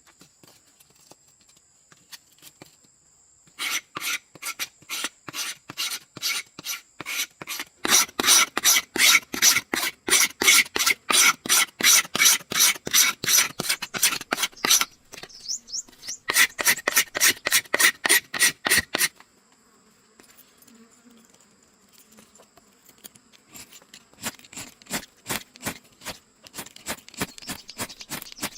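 Rhythmic rasping strokes of a hand tool working a material, about three strokes a second, in a long run, then a short pause and a second run, before fading to fainter scraping. A faint steady high whine runs underneath.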